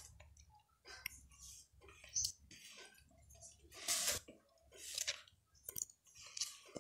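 Thick cake batter squelching as a spoon stirs and folds it in a pot, in irregular wet strokes about once a second.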